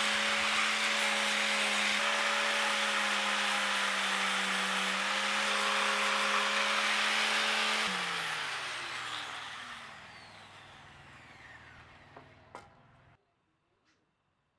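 Electric power tool motor running at steady speed, then switched off about eight seconds in and winding down, its pitch falling as it coasts to a stop over several seconds, with a click or two near the end.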